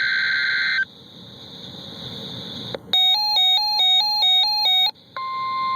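NOAA Weather Radio emergency alert tones. A digital SAME header burst of screechy data tones cuts off about a second in. Around three seconds in, an electronic alert tone alternates rapidly between two pitches for about two seconds. Near the end, the steady single-pitch warning alarm tone begins.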